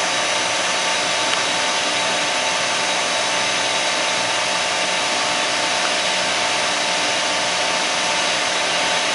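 Ingersoll double-column CNC planer mill running under power: a steady whirring noise with a few steady mid-pitched tones that does not change.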